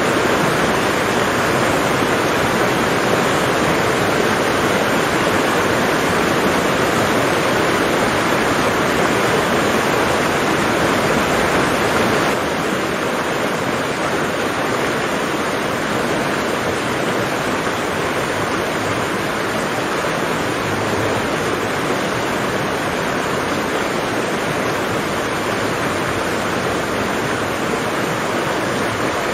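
Steady, even hiss of heavy rain, a little quieter from about twelve seconds in.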